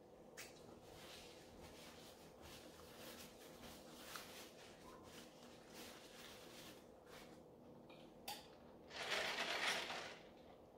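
Quiet mouth-chewing and the soft rustle of a paper napkin as greasy hands are wiped, then, near the end, a loud sip through a straw from a foam cup lasting about a second.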